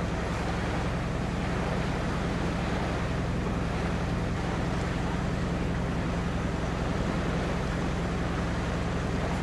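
A boat's engine running steadily at cruising speed, a constant low hum, with water rushing past the hull and wind on the microphone.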